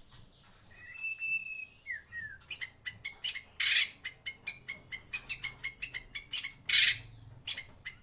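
White-rumped shama singing: a clear held whistle about a second in and a short falling slur, then a fast run of sharp, clicking notes with a few louder ones.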